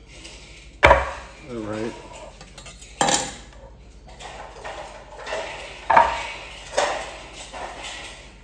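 Kitchen utensils and dishes clinking and knocking: four sharp knocks, the loudest about a second in and about six seconds in.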